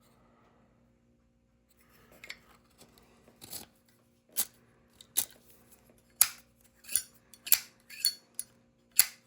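Handling noise, then a run of sharp metallic clacks about once a second: a new Zippo lighter's hinged lid being flipped open and snapped shut.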